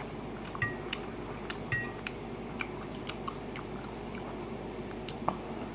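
Close-up chewing of a mouthful of skillet chili and rice, with a few light clicks of a utensil against the dish, two of them ringing briefly in the first two seconds.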